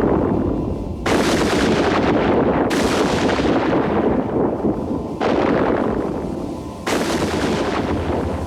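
A run of heavy booming blasts: one is already fading at the start, then four more each hit suddenly and die away over a second or two, over a steady low hum.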